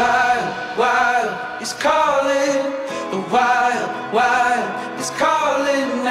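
Background music: a song with singing, short sung phrases recurring about once a second.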